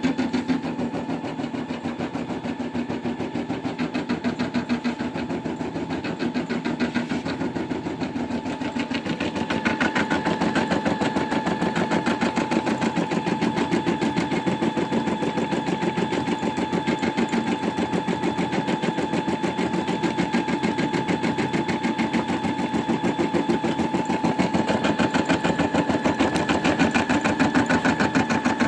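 Brother Innov-is M280D embroidery machine stitching out a design: a fast, even needle rhythm with a steady motor whine, getting a little louder about ten seconds in.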